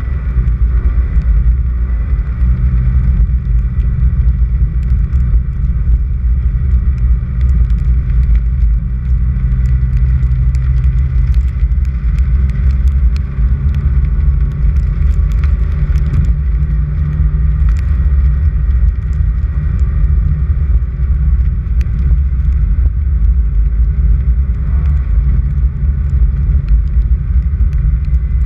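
A vehicle driving on a gravel dirt road, with a strong steady rumble of engine and tyres and scattered light ticks.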